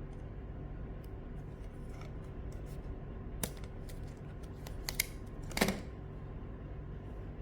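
A few light clicks and taps, the loudest about five and a half seconds in, over a steady low background hum.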